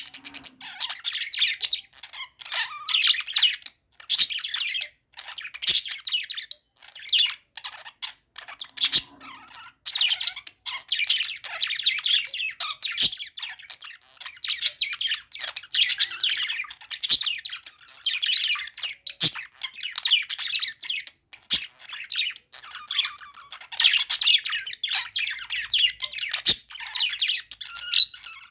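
Pet budgerigars chattering and chirping almost without pause, with short squawks and a few sharp clicks here and there.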